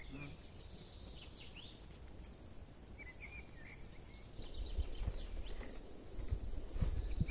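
Small birds chirping and calling in short, sliding notes, over a low rumble that grows louder about halfway through.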